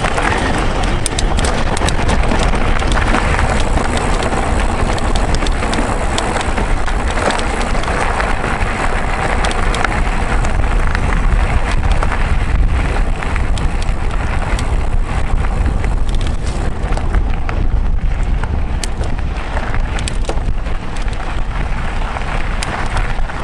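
Mountain bike ridden over a rough gravel trail: continuous tyre and wind noise on the camera microphone, with many small clicks and rattles from stones and the bike.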